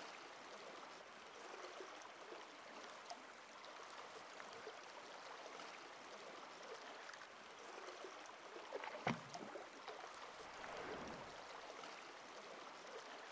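Faint, even rush of river water flowing and rippling, with one short, sharp knock about nine seconds in.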